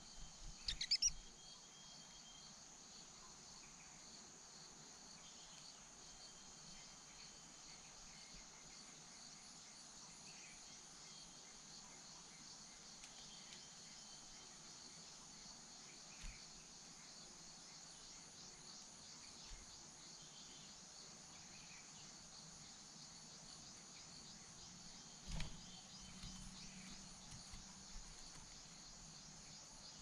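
Steady high-pitched insect chorus. A few quick high chirps sound about a second in, and a single soft knock near the end.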